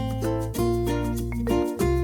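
Upbeat background music of plucked strings, ukulele-like, with a steady rhythm over a held bass note that changes a couple of times.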